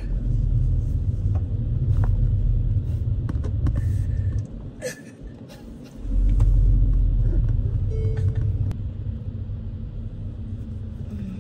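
Deep, heavy rumble inside a car's cabin with music playing. The low end drops out for about a second and a half midway, comes back loud, then eases off over the last few seconds.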